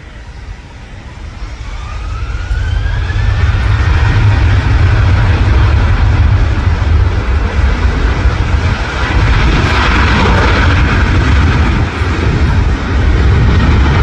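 Airliner's engines building from a rising whine to a loud, steady roar as the aircraft passes close, loudest about ten seconds in. A heavy, fluctuating low rumble of wind buffets the microphone.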